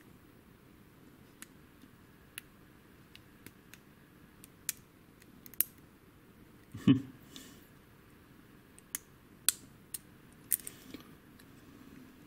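Lock pick and tension wrench working the pins of a WILKA pin-tumbler cylinder during single-pin picking: scattered small, sharp metallic clicks as pins are probed and set, with one louder knock about seven seconds in.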